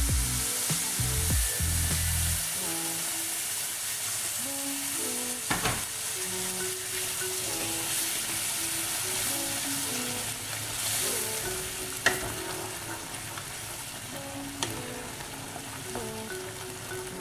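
Warm water hitting hot sooji and vegetables in a kadhai, sizzling with a steady hiss while a spatula stirs the mixture, with a few sharp clicks. Soft background music of short notes plays underneath.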